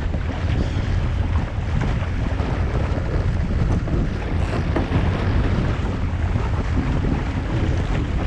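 Wind buffeting the microphone of a GoPro mounted on a Musto Skiff sailing dinghy, with water rushing along the hull as the boat sails in a fresh breeze. It is a steady, dense rumble with no breaks.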